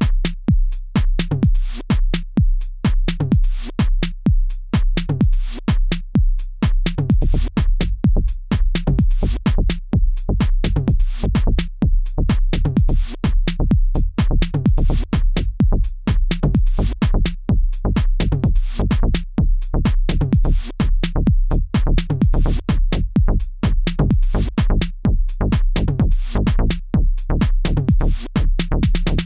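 Electronic dance music with a steady drum-machine beat; a heavier bass comes in about seven seconds in.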